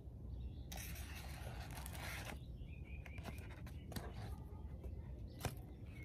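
Scraping and rustling of something being handled close to the microphone, lasting about a second and a half, followed by a few faint bird chirps and light clicks.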